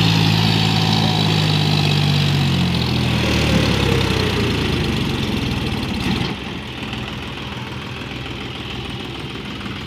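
John Deere 5045D tractor's three-cylinder diesel engine running as it pulls a trailer past. Loud at first, it fades as the tractor moves off, with a sudden drop in level about six seconds in.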